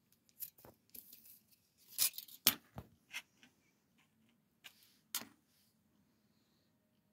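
Handling noises: a scattered series of light clicks, taps and rustles, the loudest about two and a half seconds in.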